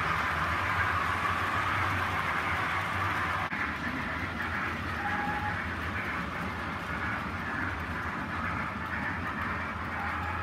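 Hornby OO gauge model of Mallard and its coaches running over the layout's track: a steady rolling rumble of small wheels on rail with a low hum, easing slightly as the train moves away.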